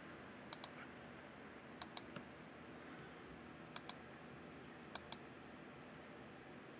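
Computer mouse clicking through pictures: four quick clicks, each a press-and-release pair, spaced a second or so apart, over quiet room tone.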